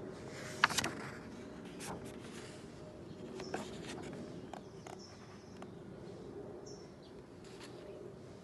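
Outdoor ambience: a steady low hum with a few short, high bird chirps. A sharp click and brief paper handling come about half a second in, as a picture-book page is turned.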